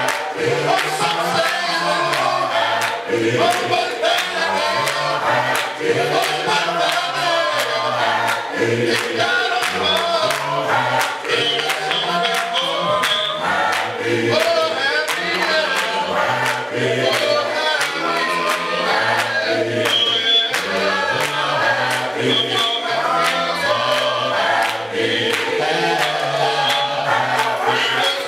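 Gospel choir singing, with a man's lead voice and steady rhythmic hand clapping.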